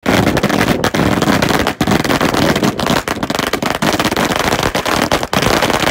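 A string of firecrackers going off: rapid, dense, loud popping that runs on with only a few brief gaps.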